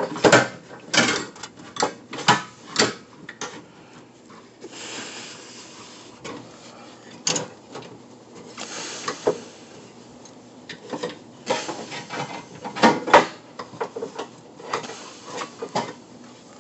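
Irregular clicks, knocks and scraping as the fuel pump assembly is twisted and worked loose inside a Ford Crown Victoria's fuel tank, with two short stretches of hiss and clothing rubbing close to the microphone.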